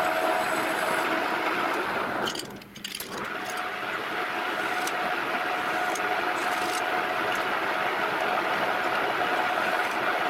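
Small 1615 lathe running, its motor and gearing giving a steady hum with a constant whine. The sound drops away briefly about two and a half seconds in, then the lathe runs on steadily.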